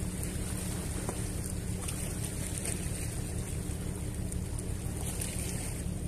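Steady wind rumbling on the microphone over the wash of the sea against a rock breakwater, with a faint steady hum beneath.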